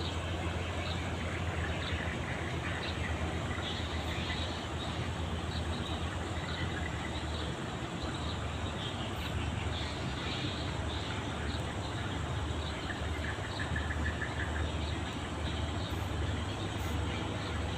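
Tugboat diesel engine running with a steady low drone, over a constant wash of noise.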